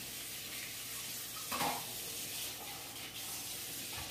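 Kitchen faucet running into a stainless steel sink as hands wash at it: a steady hiss of water, with a short knock about one and a half seconds in.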